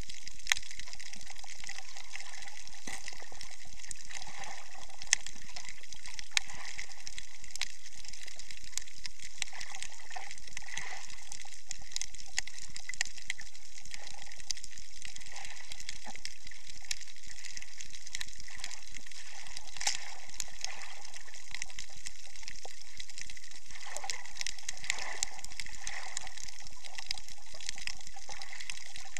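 Underwater ambience recorded by an action camera in its waterproof case: a steady high hiss with many scattered sharp clicks and a softer, wavering watery murmur beneath.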